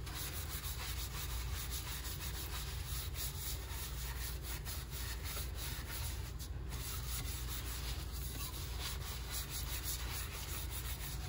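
Steady wet rubbing as a gloved hand scrubs an abrasive matting paste around a wet epoxy-coated tumbler, dulling its glossy resin to a matte finish.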